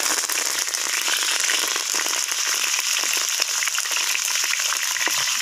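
Fresh curry leaves sizzling and spluttering in hot sesame oil in a large wok: a dense, steady crackle of many tiny pops.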